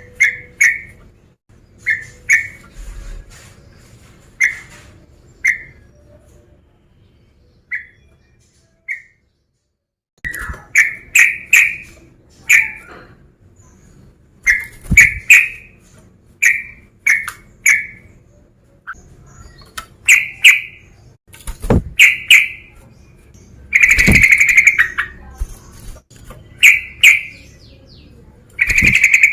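Male yellow-vented bulbul (trucukan) singing, a loud lively song of short bubbly notes repeated in quick phrases, with a short break about 8 to 10 seconds in and the busiest phrase near the end.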